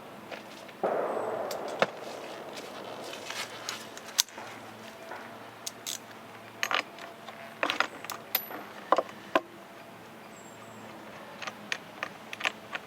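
Hand tools and small metal parts clinking and clattering on a workbench while a chainsaw is being taken apart, the spark plug coming out. There is a short rough burst of noise about a second in, then scattered sharp clicks and taps.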